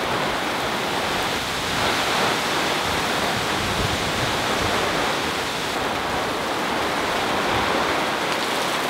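Heavy rain pouring down in a thunderstorm: a dense, steady hiss.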